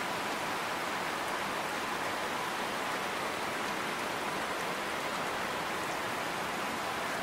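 Steady, even rushing noise with no breaks or distinct events, like rain on a roof.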